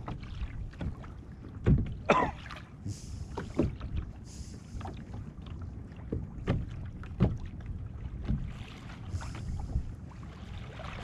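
Small waves slapping and splashing against a kayak's plastic hull, a dozen or so irregular slaps over a steady low rumble, with a few brief hissing splashes.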